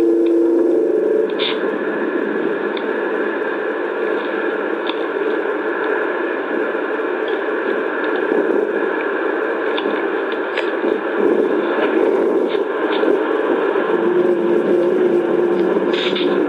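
A steady, static-like hissing roar with a low hum under it. The hum fades about a second in and comes back near the end. It is a noisy recording of one of the reported 'strange sounds' heard from the earth and sky.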